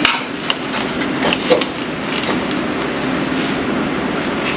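A few sharp metallic clicks and clinks of hand tools being picked up and handled, over a steady background noise.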